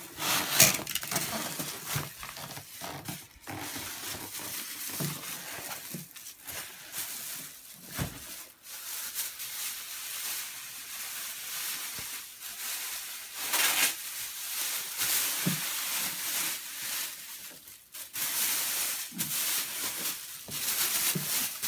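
Clear plastic wrapping crinkling and rustling in irregular bursts as a guitar hard case is handled and pulled out of its plastic bag, with a single low knock about eight seconds in.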